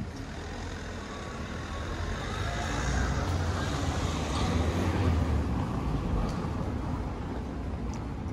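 A motor vehicle passing in the street, its low engine rumble growing to a peak about three to five seconds in and then fading.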